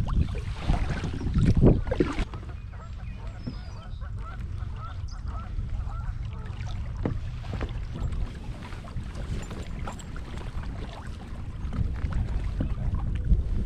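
Strong wind buffeting the microphone, a steady low rumble with loud gusts in the first two seconds. A run of short, faint bird calls comes about four to six seconds in.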